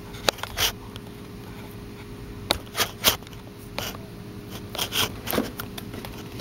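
Irregular sharp clicks and small crackles, about a dozen scattered through, over a low steady hum.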